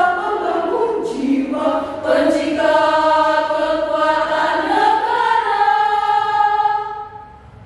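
Women's choir singing long held notes in several parts, moving from chord to chord; the final held chord cuts off about seven seconds in.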